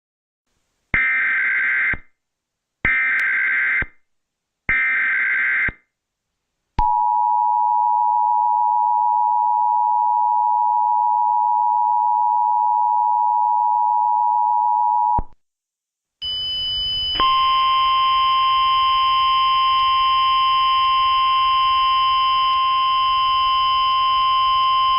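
Emergency Alert System tones: three one-second bursts of the screeching SAME digital header, then the two-tone attention signal held steady for about eight seconds. After a short gap a low hum starts, joined a second later by a steady higher electronic tone with several overtones.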